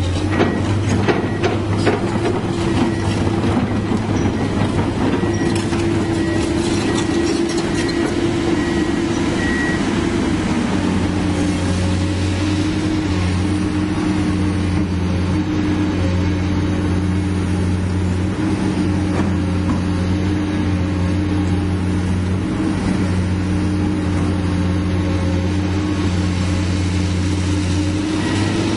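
Komatsu PC200-8 hydraulic excavator's diesel engine running steadily at close range, with a few knocks in the first seconds while the machine works. About ten seconds in, its pitch steps down slightly and then holds.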